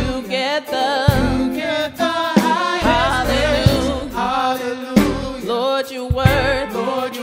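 Gospel praise team of several singers with a live band of keyboard, bass guitar, electric guitar and drums performing an upbeat worship song, the voices in harmony over a steady drum beat.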